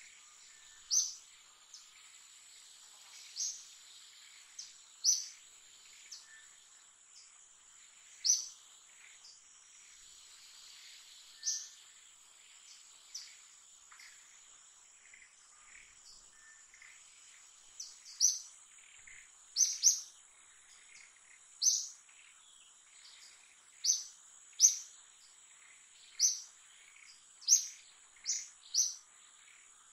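Outdoor ambience of birds and insects: a steady high insect drone, with short, sharp bird chirps repeated at irregular intervals, coming more often in the second half.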